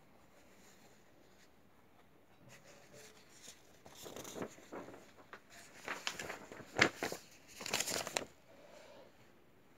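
Irregular rustling and crinkling handling noise with a few sharp clicks, starting about two and a half seconds in and stopping about a second before the end; quiet room tone around it.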